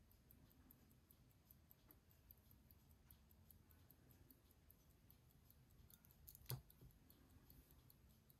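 Faint, even ticking of a c.1895 Patek Philippe pocket-watch movement in a 49 mm wristwatch case, about five ticks a second, with one louder knock about six and a half seconds in.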